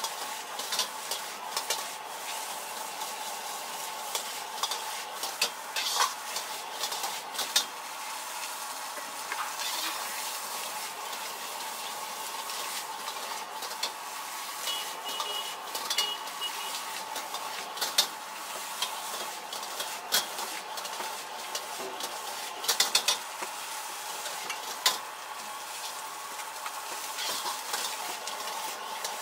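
Diced carrots, peas and corn sizzling steadily in a wok while a metal ladle and spatula stir and scrape. Frequent sharp clacks of metal striking the wok come through the sizzle, a quick cluster of them a little before the end.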